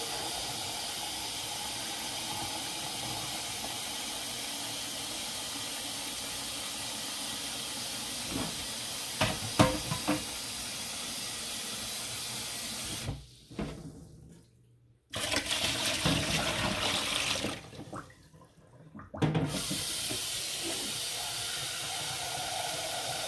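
Kitchen tap running steadily while a cooking pot is rinsed out, with a few clanks of the pot about eight to ten seconds in. The water cuts off twice for a second or two in the second half.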